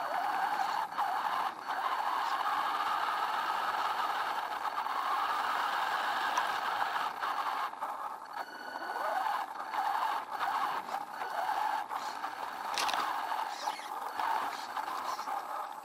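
WLtoys 10428 RC truck's electric motor and gears whining steadily as it drives, the whine dipping and climbing with the throttle, with rattles, scrapes and knocks from the chassis over rough trail. It is heard up close from a camera mounted on the truck.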